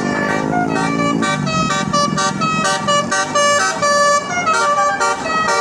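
A bus's 'telolet basuri' multi-tone musical horn playing a quick melody of short notes, with a lower falling tone in the first second.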